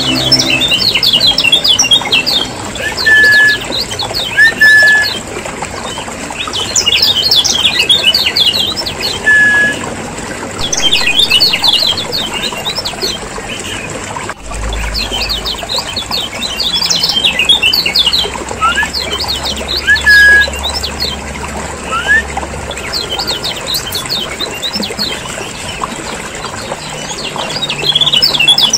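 Kecial kuning (Lombok yellow white-eye) lure recording: repeated bouts of rapid, high chattering calls, each lasting a second or two, with a few short clear whistled notes in between.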